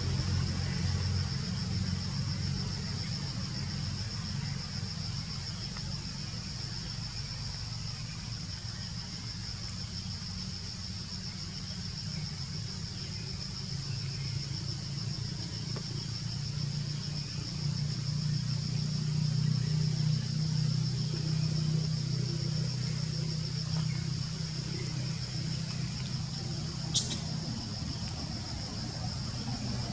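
Steady high-pitched insect chorus, cicadas or crickets, over a low rumble that swells in the middle. A single sharp click near the end.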